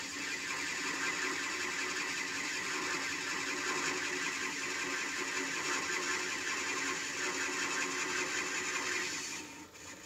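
Metal lathe cutting a cast iron bar, turning down the small central boss of a cylinder cover: a steady hiss from the tool in the cut that stops near the end as the pass finishes.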